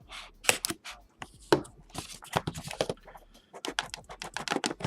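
Trading cards and their packaging being handled as a box break is opened: a quick, irregular run of crisp clicks, scrapes and crinkles.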